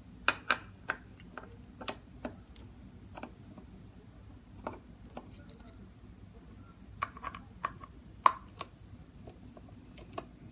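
Irregular small metallic clicks and taps from a screwdriver working against the steel trim of an electronic keypad lever lock, as its screws are undone to take off the back panel.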